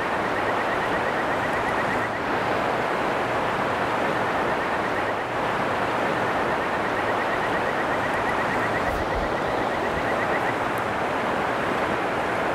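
Steady rushing of a mountain stream's current. A faint, rapid, high-pitched ticking comes and goes twice over it.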